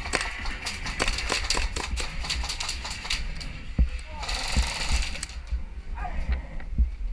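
Airsoft gun firing a rapid string of shots, several sharp clicks a second, which stops after about three and a half seconds. About four seconds in comes a hiss lasting about a second. Low wind rumble on the microphone runs underneath.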